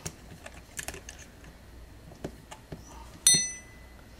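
Small clicks and knocks of hands working a tripod leg-lock joint, then about three seconds in a sharp metallic clink with a brief high ring as a small steel wrench is set down.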